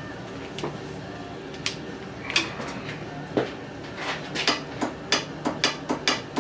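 Sharp clicks from the starter circuit of a 2001 Polaris Sportsman 500 H.O., a few at first and then about three or four a second near the end, with the engine not cranking: a sign of an electrical fault in the starting system.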